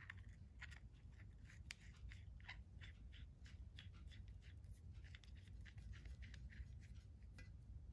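Faint, irregular light clicks and scrapes of a small anodized aluminum oil-line fitting being handled and fitted by hand onto a tee fitting at an engine block's oil pressure port.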